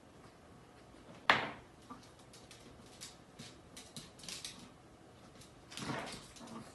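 Chihuahua giving one sharp bark about a second in, followed by a run of light clicks and scuffs from the dogs' claws on the wooden floor and the crate, with a rougher, louder burst near the end.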